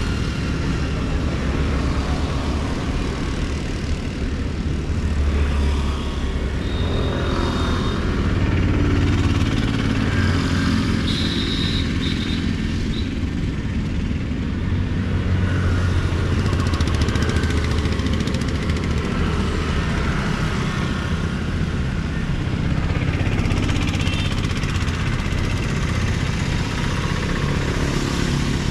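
Steady city-road traffic: vehicles passing one after another, engines and tyres rumbling, the noise swelling and easing as each goes by.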